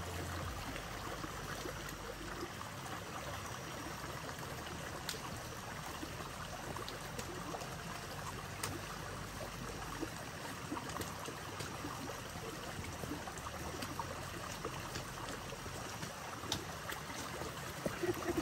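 A stream of water flowing steadily, a continuous rushing, with a few faint clicks.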